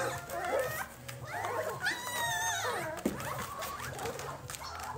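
A litter of young Belgian Malinois puppies whimpering and squeaking over one another as they jostle to nurse, with one longer, higher squeal about two seconds in.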